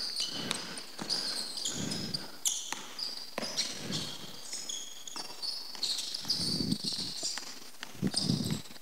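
A basketball dribbled on a hardwood court in irregular bounces every second or two, with sneakers squeaking on the floor as the players move.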